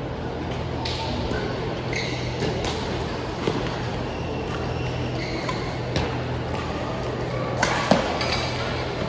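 Badminton rally: sharp racket strikes on a shuttlecock every two seconds or so, the loudest near the end, with short high squeaks of court shoes between them. A steady low hum runs underneath.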